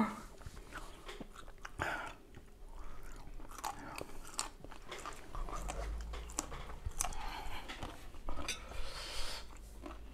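People eating duck larb: chewing with scattered light clicks of utensils, and a low rumble from about halfway through.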